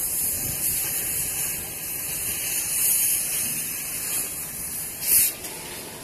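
Steady hissing sizzle of hot screws dropping from a tilting quenching furnace into its quench-water tank, with a brief louder surge about five seconds in.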